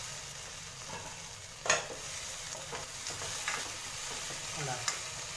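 Okra, shallots and chillies sizzling in oil in a pot while a spatula stirs them. There is a sharp clack about a second and a half in and lighter knocks later.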